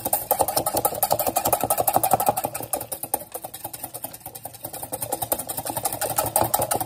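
Metal whisk beating rapidly against the inside of an enamel bowl, a fast, steady clatter, as eggs, mustard and oil are whisked into mayonnaise.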